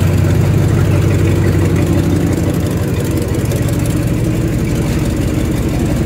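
1970 GMC truck engine idling steadily, with an even low note.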